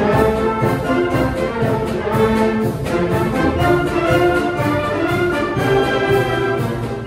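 Symphonic concert band playing a Broadway show-tune arrangement: sustained brass and woodwind chords over a steady percussion beat.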